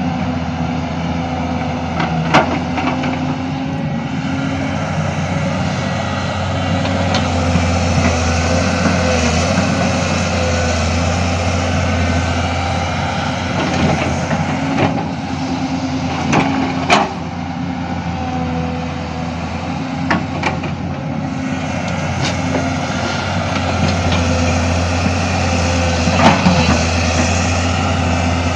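Hydraulic excavator working: its diesel engine runs steadily under load, with a steady hum and tones, and a few sharp metallic clanks at irregular intervals.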